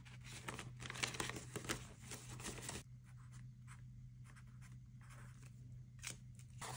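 Paper banknotes and binder pockets rustling as cash is handled for about three seconds, then the faint scratch of a pen marking a paper savings tracker.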